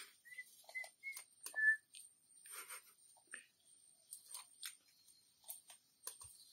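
Short, high whistle-like chirps, four or five of them in the first two seconds, among scattered light clicks and rustles, over a faint steady high-pitched tone.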